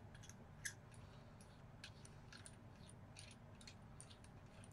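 Faint, scattered clicks and light scrapes of a neopixel lightsaber blade being twisted and pushed into the saber hilt's blade holder, with one slightly louder click less than a second in. The blade is not yet seated deep enough.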